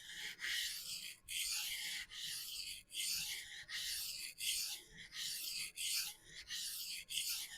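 Steel knife blade stroked back and forth across a vitrified diamond sharpening stone, freehand: a run of about a dozen even, hissy scraping strokes, roughly one and a half a second.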